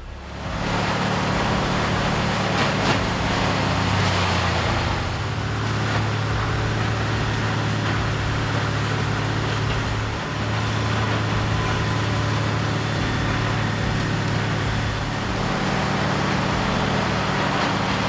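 Large diesel engine of heavy machinery running steadily under a broad rushing noise, with a brief dip about ten seconds in.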